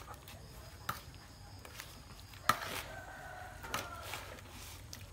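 A rooster crowing quietly, starting about two and a half seconds in, over a few light clicks and rustles from hands folding banana-leaf parcels.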